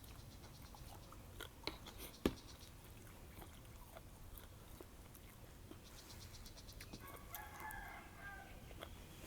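Faint clicks of eating and chewing, with one sharp click about two seconds in; near the end a rooster crows once, lasting under two seconds.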